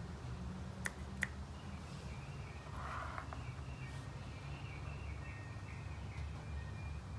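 Two sharp clicks about half a second apart, over a steady low hum with faint wavering high chirps later on.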